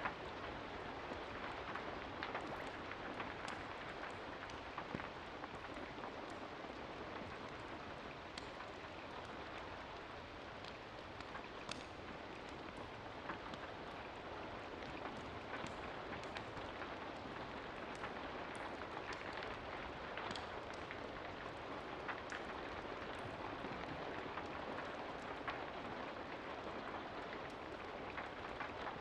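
Steady rain, an even hiss dotted with scattered sharp ticks of individual drops striking a surface.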